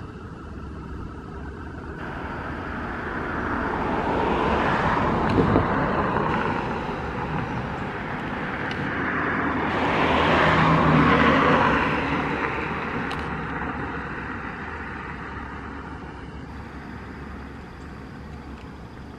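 Two vehicles passing one after the other, each swelling up and fading away, the second loudest about eleven seconds in, over a steady low hum.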